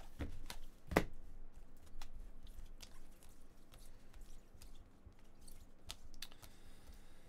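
Trading cards in plastic sleeves being handled and flipped through, making irregular light clicks and rustles, with one sharper click about a second in.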